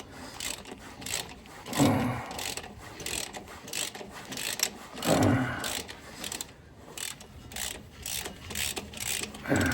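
Socket ratchet clicking in runs as a 24 mm drain plug with a long thread is wound out of an LT77 gearbox, with a couple of louder, duller knocks among the clicks.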